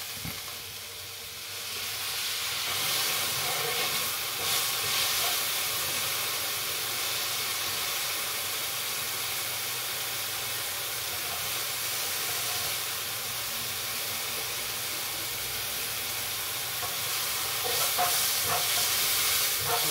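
Enoki mushrooms sizzling in a hot frying pan as they are stirred and turned with metal tongs. The sizzle swells about two seconds in and then holds steady.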